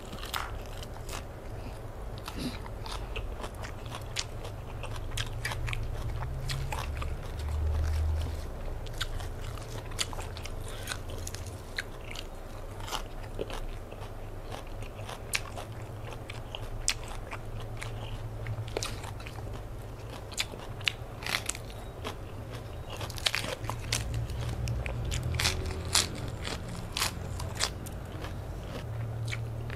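A person chewing fresh leafy greens close to the microphone: irregular crisp crunches and wet mouth clicks.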